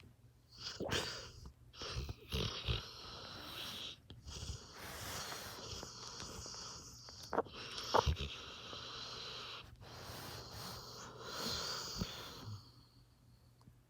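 Dog snoring in deep sleep: long noisy breaths broken by several short sharp sounds, the loudest about eight seconds in.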